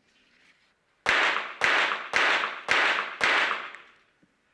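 Five pistol shots from a .22 Short rapid-fire pistol, evenly spaced about half a second apart, each ringing off briefly: one timed five-shot rapid-fire series.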